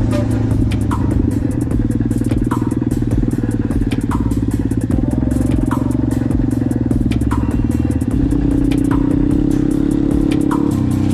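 Enduro motorcycle engine running steadily, with electronic music playing over it, a short falling synth note repeating about once a second.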